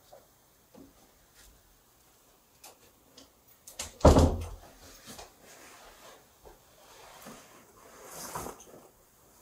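Handling noises: scattered light clicks and knocks, one loud knock about four seconds in, and a short scraping rustle near the end.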